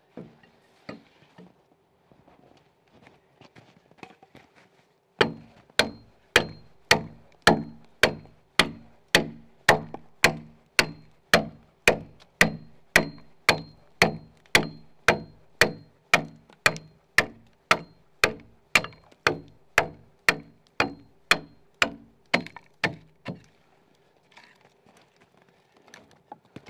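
Hammer striking the back of an axe set into a log, driving the blade down to cut the cog of a saddle-notch corner joint. The blows come in a long even run with a ringing note, a little over two a second, starting about five seconds in and stopping near the end, after a few faint light knocks.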